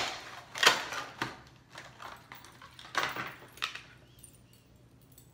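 Sharp clicks and clatter of a hard clear plastic lure case being opened and handled as a spinnerbait is taken out, with the jingle of its six metal willow-leaf blades. The handling dies away about four seconds in.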